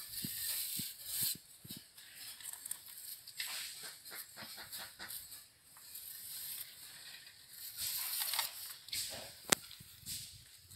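Small steel trowel and hooked grooving tool scraping over fresh cement render in short, irregular strokes, with one sharp click near the end.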